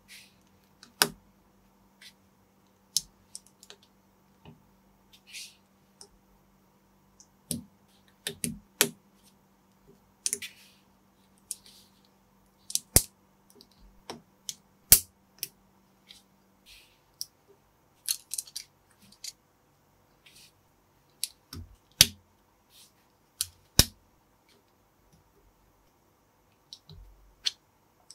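Small plastic building bricks and parts clicking and clattering as they are handled and pressed together: irregular sharp clicks, with a few short soft rustles between them.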